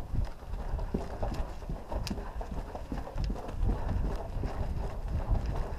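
Footsteps on a gritty brick floor in a brick-vaulted tunnel, an uneven run of scuffs and knocks, with one sharp click about two seconds in.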